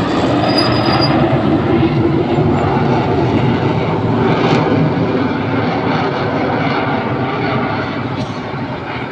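Military aircraft engine noise during an air show flypast: a steady loud roar that eases off over the last few seconds as the aircraft passes.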